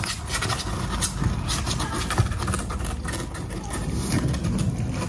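A kitten's claws scratching and scraping at the edge of a cardboard box as it climbs over, a run of small irregular scratches and clicks over a steady low hum.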